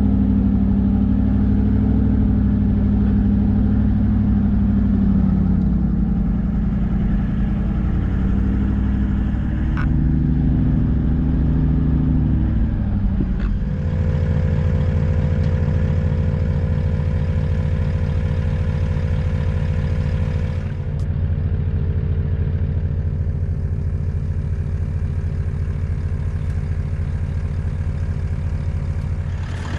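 Toyota Land Cruiser 76 Series engine running steadily under way, with a change in its note about thirteen seconds in.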